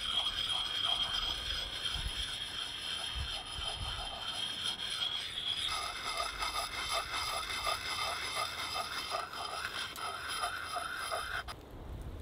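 Rhythmic scraping strokes on the head of a small hatchet worked by hand, about two or three strokes a second, over a steady high thin tone that changes pitch about halfway through.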